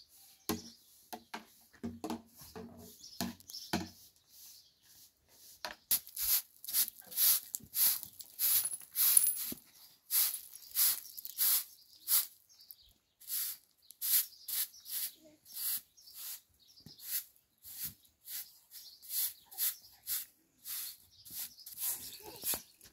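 Short straw hand broom sweeping a concrete step: a steady run of short brushing strokes, about one or two a second, starting about six seconds in. A few short voice-like sounds come in the first few seconds.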